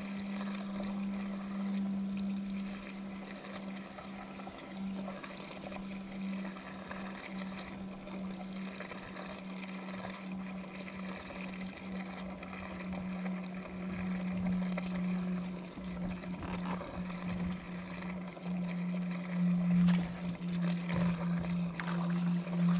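Small electric boat motor, a trolling motor, humming steadily with water swishing and trickling along the hull. The hum drops a little in pitch near the end, where a few knocks or splashes come in.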